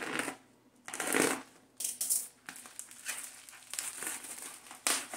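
A parcel's packaging being handled and unwrapped, rustling in several short noisy bursts, the loudest about a second in, then softer scattered rustling.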